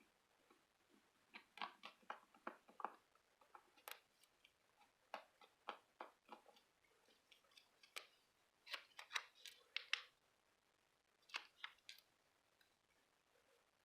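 Faint, irregular snips and clicks of paper and stickers being handled and cut, coming in clusters.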